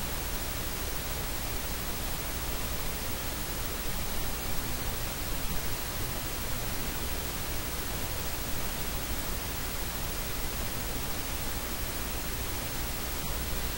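Steady static hiss with a low hum underneath, and no speech to be heard.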